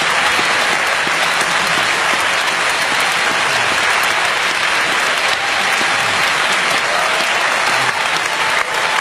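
Large audience applauding: dense, steady clapping that holds at an even level.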